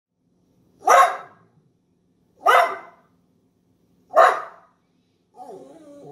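Dachshund barking three times, about a second and a half apart: sharp, loud demanding barks for attention.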